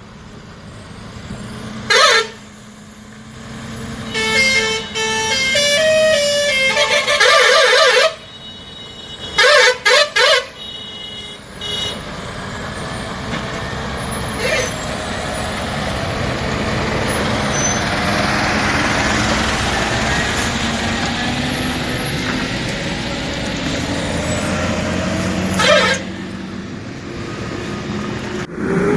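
Toy construction vehicles' electronic sound effects: several short horn toots and a quick stepped tune in the first ten seconds or so, then a long steady engine-like drone that swells in the middle, with one more toot near the end.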